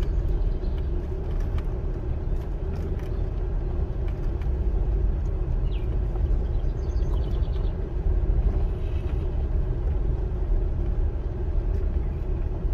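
Car rolling slowly along a gravel campground road, heard from inside the cabin: a steady low rumble of engine and tyres with a few faint ticks.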